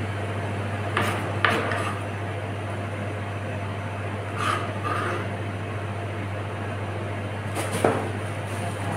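Steady low hum of kitchen machinery, with a few short knocks and scrapes of a kitchen knife against a plastic cutting board: two about a second in and one near the end.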